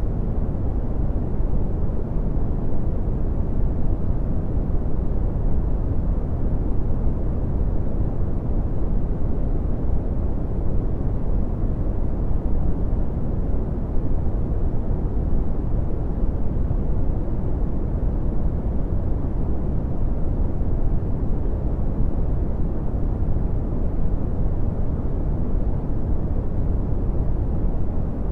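Steady red (Brownian) noise: an even, deep rumbling hiss, loudest in the bass and falling away toward the treble, with no changes.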